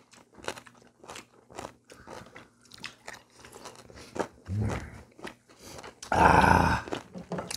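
People chewing food at the table, with many small wet clicks and crunches. There is a low hum from a closed mouth about four and a half seconds in. About six seconds in comes a loud rushing burst lasting about a second.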